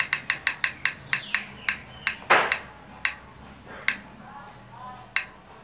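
A decision-wheel app on a phone ticking as its wheel spins, fast at first and slowing steadily, the ticks more than a second apart near the end as the wheel comes to rest. A brief loud puff of noise about two seconds in.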